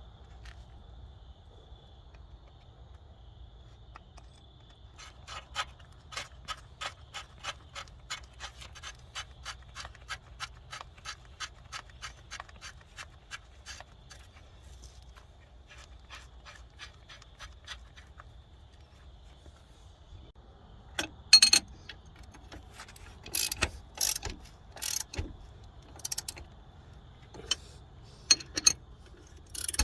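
Hand ratchet wrench clicking evenly, about three or four clicks a second, for some nine seconds. Later come louder, irregular sharp metal clinks of tools and parts.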